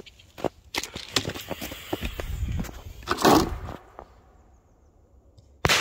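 Handling and shuffling noises, with a louder rustling clatter about three seconds in. Near the end comes a single sharp bang of a small grenade-type firecracker exploding about 15 m off, with a short echoing ring-out; it is a rather weak blast.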